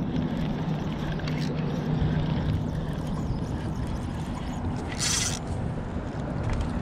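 A steady engine drone under outdoor noise, with a brief hiss about five seconds in.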